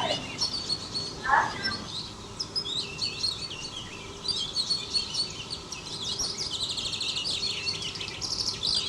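Several small birds chirping and singing, with many quick overlapping chirps and a rapid trill about seven seconds in.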